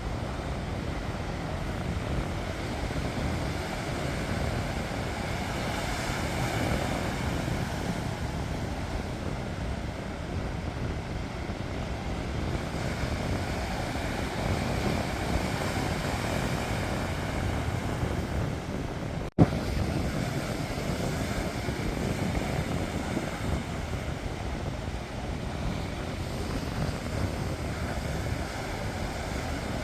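Sea waves breaking and washing ashore in slow swells, with wind rumbling on the microphone. A single sharp click breaks in about two-thirds of the way through.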